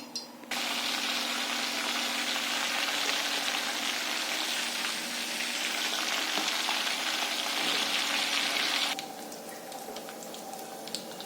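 Chicken frying in hot oil: a loud, even sizzle that starts suddenly about half a second in and cuts off abruptly about nine seconds in, leaving a much quieter background with a few faint clicks.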